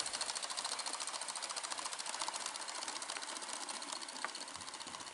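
Gauge 1 model train running along the garden track, a rapid, even clicking of wheels and mechanism that slowly fades as it moves away.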